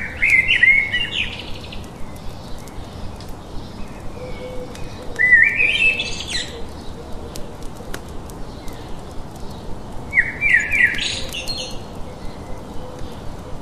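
A songbird sings the same short phrase of quick, rising whistled notes three times, about five seconds apart, over a steady ticking of faint clicks a few times a second.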